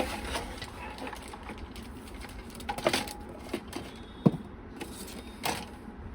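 Scattered light clicks and knocks of computer parts and a PC case being handled, the sharpest a single knock about four seconds in.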